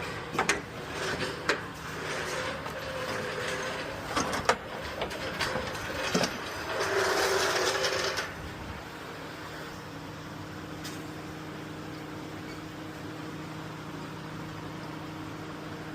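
Tools and parts clicking and knocking in a car's engine bay as wiring and loose parts are disconnected, with a brief rushing noise about seven seconds in. After about eight seconds a steady low hum carries on alone.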